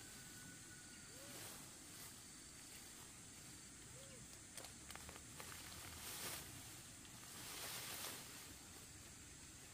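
Faint outdoor ambience with soft rustling swells and a few light clicks.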